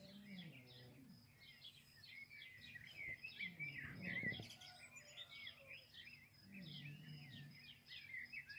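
Faint, continuous chatter of many small birds chirping and trilling, with a few low wavering sounds underneath.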